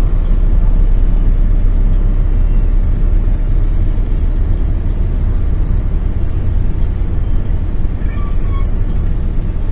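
Steady low rumble of a sleeper coach under way, its engine and road noise heard from inside the passenger cabin. A brief faint high-pitched sound comes about eight seconds in.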